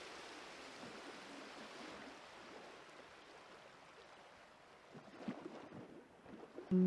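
Faint, steady background hiss with a few soft clicks about five seconds in. Background music starts just before the end.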